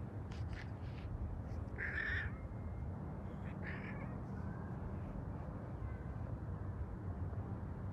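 Two short, harsh animal calls about a second and a half apart, over a steady low rumble.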